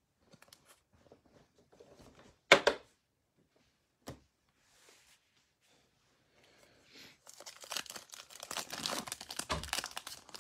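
Faint handling clicks, then a single sharp knock about two and a half seconds in. From about seven seconds in, a foil trading card pack is torn open, its wrapper crinkling and tearing without a break.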